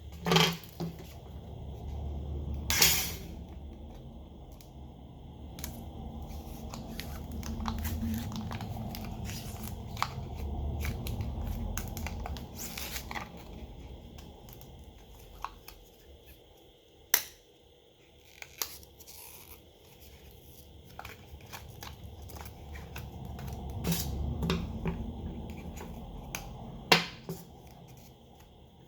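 Small repair tools working on a smartphone: scattered sharp clicks and taps with scraping and peeling noise as the back cover is pried off its adhesive.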